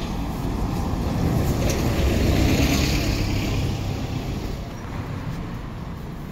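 A motor vehicle passing close by: low engine rumble and tyre hiss that swell about two to three seconds in, then slowly fade away.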